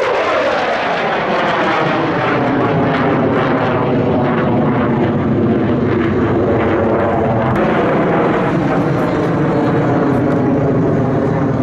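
US Air Force Thunderbirds F-16 Fighting Falcon jets running loud and steady as they fly the display, with a drop in pitch just after the start.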